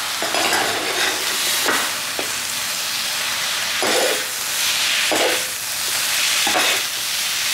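Flat rice noodles and bean sprouts sizzling steadily on a hot steel teppanyaki griddle while two metal spatulas scrape and toss them, about six scraping strokes against the plate.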